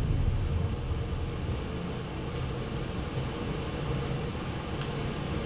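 A steady low rumble with faint steady hum tones underneath.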